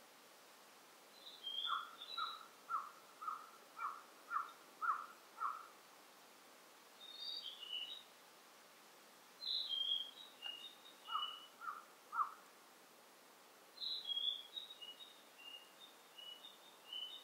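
Wild forest birds singing over a faint steady ambient hiss. Short high phrases recur every few seconds. A run of about eight lower repeated notes, roughly two a second, comes near the start, with three more around the middle.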